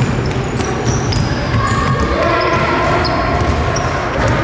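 Basketball game sounds on a hardwood court: the ball bouncing as it is dribbled, and sneakers giving short high squeaks, all echoing in a large gym hall.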